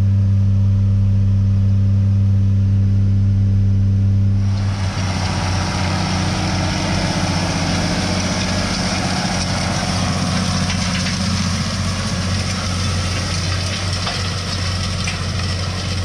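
A tractor's diesel engine drones steadily, heard inside the cab while the grain cart unloads. About four and a half seconds in, the sound switches to a Case IH 7130 Magnum tractor pulling a disc across the field, its engine working under a broad rushing hiss.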